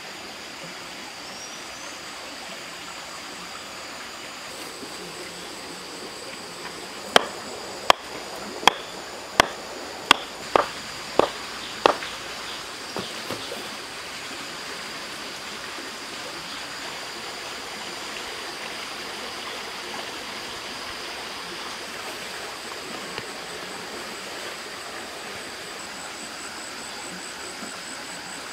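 Stream water running steadily. About seven seconds in comes a quick run of about eight sharp knocks, roughly one every 0.7 s.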